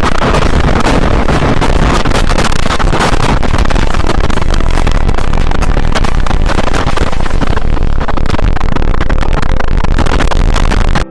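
Violent tornado wind buffeting the microphone: a loud, constant rushing roar with many sharp cracks and knocks mixed in. It cuts off abruptly at the very end.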